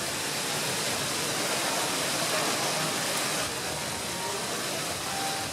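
Steady hiss of artificial rain pouring down over stage lighting fixtures.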